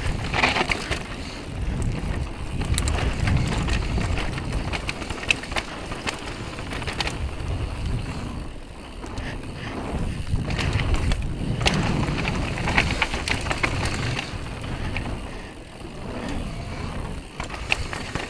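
Downhill mountain bike running fast over a dirt trail, its tyres on the ground and frame and chain rattling in a steady stream of sharp clicks, under a constant low rumble of wind on the camera's microphone.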